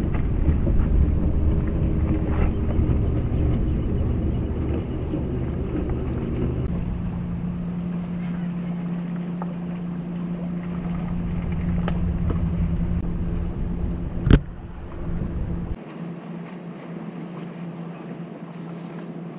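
A boat engine drones steadily out on the river under a low rumble of wind on the microphone. A single sharp click about fourteen seconds in is the loudest sound, and the low rumble drops away soon after.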